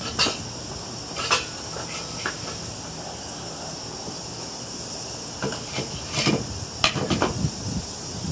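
A steady high hiss around a bronze pour into a sand mold, broken by a few sharp metallic clanks and knocks, most of them late on.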